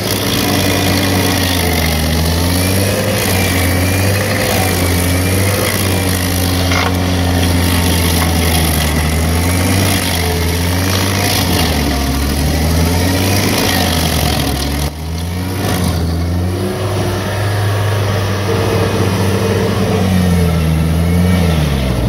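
Vermeer stump grinder's engine running under load as its cutter wheel grinds into a tree stump. The engine note repeatedly sags and recovers as the cutter bites into the wood.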